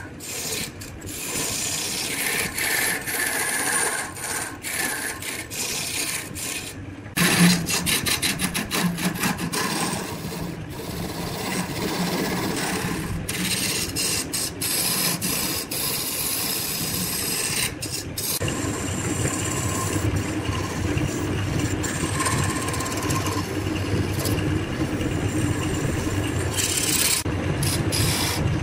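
A hand-held turning chisel cutting a spinning wooden blank on a wood lathe: a continuous scraping, shaving hiss with a few sudden breaks. A low motor hum joins about a quarter of the way through.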